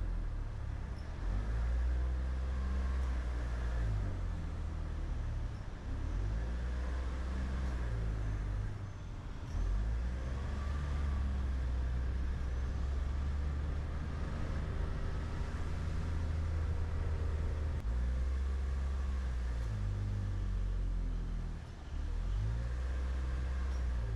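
A road vehicle driving, its engine and road noise a steady low rumble, the engine note climbing and dropping back a few times.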